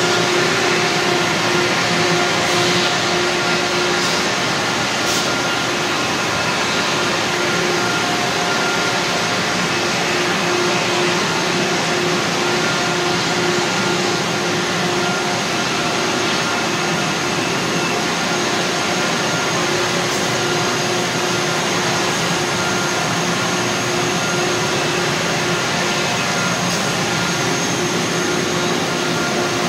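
Loud, steady industrial machinery noise: a continuous rushing hiss with a constant hum tone underneath that does not change.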